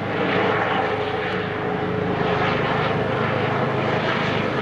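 Air ambulance helicopter approaching: a steady, loud mix of rotor and turbine engine noise with a faint held tone in it.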